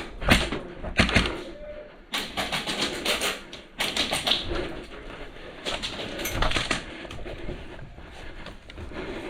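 Airsoft guns firing in rapid bursts: a fast clatter of shots in several short spurts.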